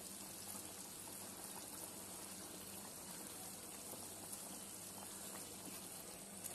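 Kuzhambu gravy boiling in a pot: a soft, steady bubbling with faint small pops.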